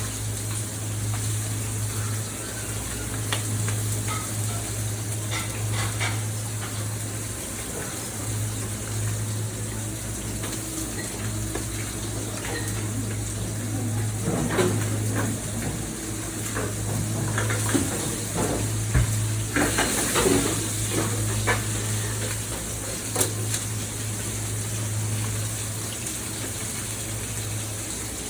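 Restaurant kitchen sounds: food sizzling as it fries, with pans and utensils clattering and knocking now and then, over a steady low hum.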